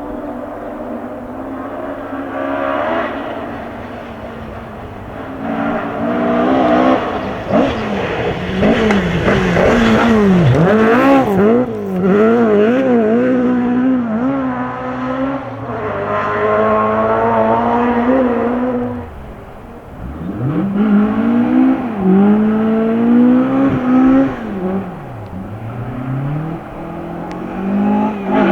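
Rally-prepared Ford Escort engine revved hard, its note climbing and falling repeatedly with gear changes and lifts, growing louder a few seconds in. It drops away briefly about twenty seconds in, then revs up and down again.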